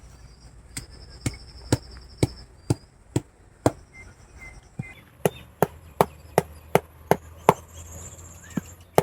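Repeated blows driving a support stake for a spit roast into the ground, about two hard knocks a second with a short pause near the middle.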